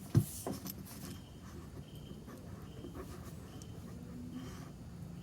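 Small clicks and knocks of a replacement plug's parts and stiff cord wire being handled while the ground wire is worked into its terminal, with one sharper knock about a quarter second in.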